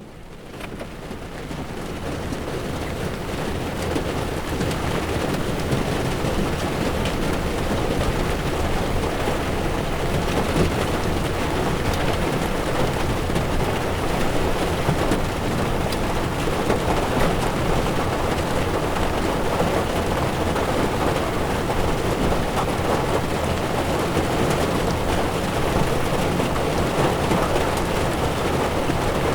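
Heavy rain falling on a car's windshield, with tyres on a wet road, heard from inside the moving car: a steady hiss that fades in over the first several seconds.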